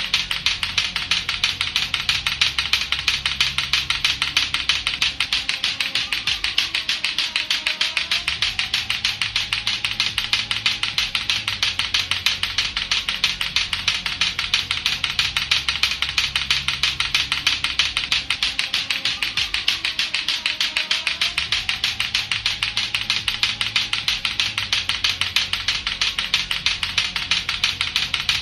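Latto-latto clacker balls knocking together in a rapid, steady clacking rhythm, over background music with a repeating bass line.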